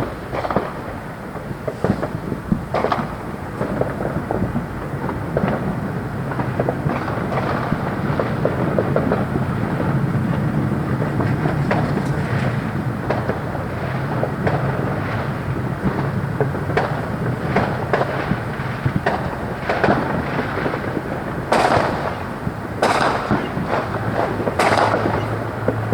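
Fireworks going off in rapid succession, many overlapping bangs and crackles over a steady low hum, with a cluster of louder bangs near the end.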